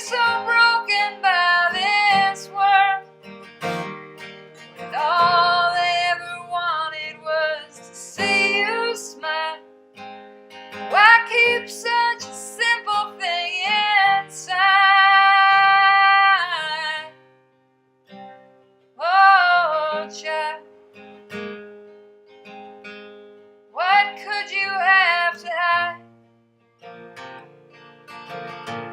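A woman singing a slow ballad over acoustic guitar, in long phrases with held notes and short pauses between them.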